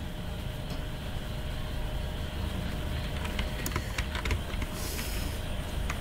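Computer keyboard keys clicking as a command is typed, in a short run of keystrokes about three to four and a half seconds in, over a steady low rumble.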